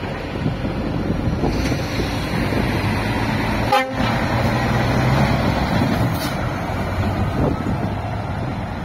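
Scania S540 articulated lorry's six-cylinder diesel engine pulling away and passing close, with tyre noise; its engine note is strongest for a couple of seconds around the middle as it goes by.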